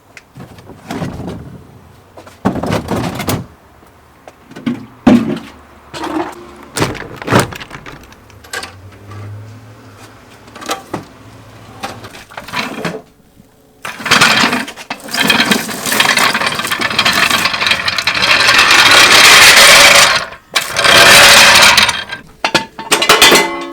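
Scattered clanks and knocks of tools being handled, then a loud rattling power tool running in two long bursts in the second half.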